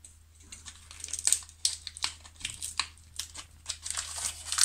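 Wrapper of a fresh yeast block crinkling in the hand as the yeast is crumbled into a glass bowl of sugar: a scattered run of small crackles.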